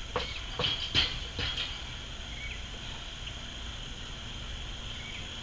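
Four sharp knocks in quick succession in the first two seconds, the loudest about a second in, over a steady high drone of insects.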